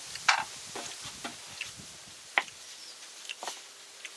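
Irregular light taps and soft clicks of hands handling raw pork belly slices in a bowl, about six short sounds, the loudest about a third of a second in and again just before halfway.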